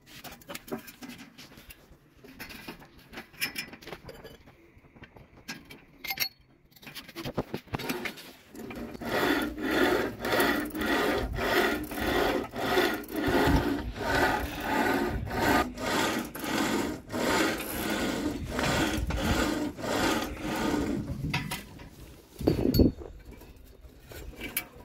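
A hand saw worked back and forth in even rhythmic strokes, about one and a half a second, for a long stretch. Before that there are quieter small clicks of tool handling, and near the end there is one sharp knock.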